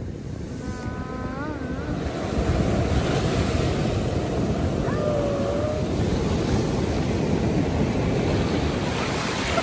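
Ocean surf breaking and washing up the beach in a continuous rush of water, growing louder about two seconds in.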